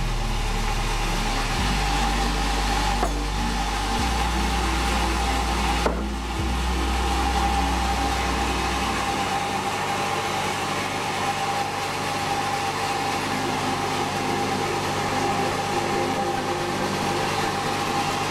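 Sawmill machinery running steadily, a constant hum with a held high tone over it. A deep low drone under it changes level in steps every couple of seconds and drops away about nine seconds in.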